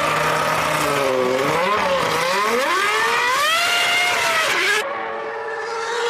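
Formula One car's 3-litre V10 engine at racing revs. The pitch holds, drops as the car slows, then climbs steeply as it accelerates. About five seconds in, the sound switches abruptly to a steadier, more muffled engine note.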